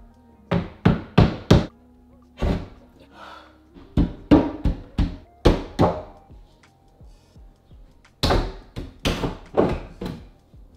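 A series of sharp wooden thunks and knocks in irregular clusters, about fifteen in all, as wooden floating shelves are handled and set in place, over background music.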